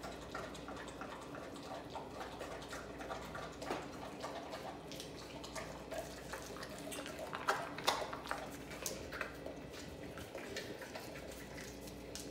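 American bully dog gnawing and chewing a large raw turkey leg: irregular wet smacking and small clicks of teeth on meat and bone, with a couple of louder chomps about seven to eight seconds in.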